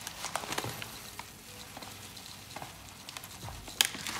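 Instant rolled oats pouring from a plastic bag into a glass cup: a soft, pattering hiss of flakes with small ticks and rustles of the bag. A single sharper click comes near the end.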